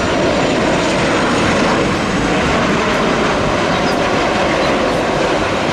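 Airplane engine noise, a steady rushing sound with no clear pitch that neither rises nor falls.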